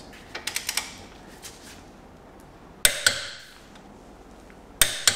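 Torque wrench clicking over as the brake caliper bolts reach 169 newton metres: a sharp metallic double click, twice, about two seconds apart, one for each bolt. A few faint ticks come about half a second in.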